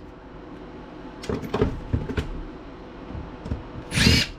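A few sharp clicks and knocks of handling laptop parts, then near the end a short burst of a power screwdriver spinning out a screw, its motor whine sliding in pitch.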